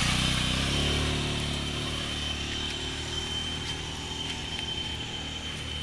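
Small motorcycle engine running with a steady low hum that fades over the first few seconds, with a steady high-pitched tone above it.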